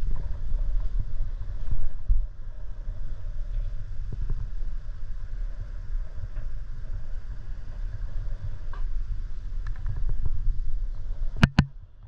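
Wind buffeting the microphone: an uneven low rumble that rises and falls. A couple of sharp clicks come near the end as the rumble drops away.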